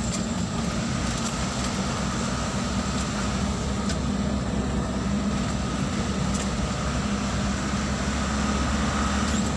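Steady engine drone and road noise heard from inside a moving vehicle's cabin, with a few light clicks and rattles along the way.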